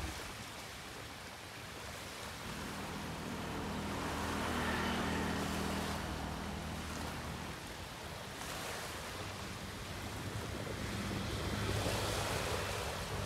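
Small sea waves washing onto the shore, swelling twice. A low engine hum runs underneath from a couple of seconds in.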